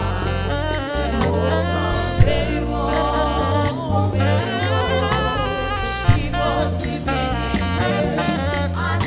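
African gospel worship music performed live: a small group of singers in harmony with saxophone and electric guitar over a deep bass line, with a few sharp hits.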